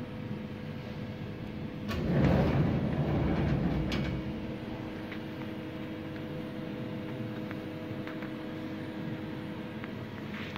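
Cincinnati Milacron Dart 500 CNC machining centre running with a steady hum. About two seconds in, a click sets off a louder mechanical whir that lasts about two seconds and ends with another click, and a steady tone then holds for most of the rest.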